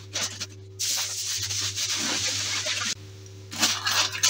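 Aluminium foil crinkling and crackling as it is pressed and wrapped around a glass reflux flask for insulation, with a steady stretch of crinkling and sharper crackles near the end.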